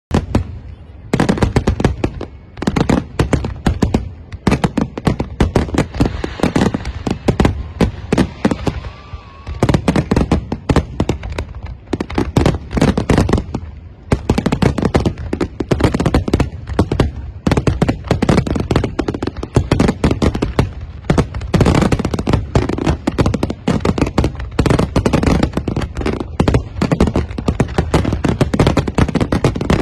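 Aerial firework shells bursting in a dense, continuous barrage: rapid loud bangs and crackles, several a second, starting about a second in.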